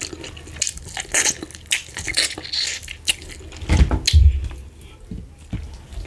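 Close-miked wet eating sounds: fufu with slimy ogbono soup being handled and chewed, with many small sticky clicks and squishes and a couple of low thuds a little before halfway.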